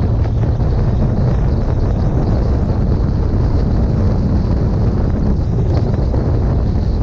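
Wind buffeting the microphone of a camera on a moving motorcycle: a steady low rumble of wind and road noise.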